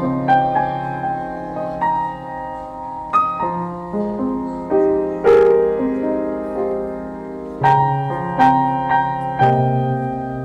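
Background piano music: a slow melody with a note or chord struck every second or so, each ringing and fading.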